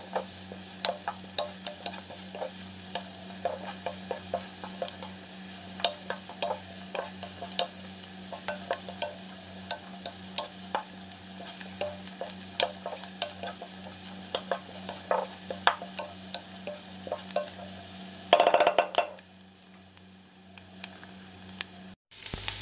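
Chopped garlic and sliced onion sizzling in oil in a nonstick pan, with frequent light clicks and scrapes of a wooden spatula stirring them. Near the end comes a brief loud burst, after which the sizzling is quieter.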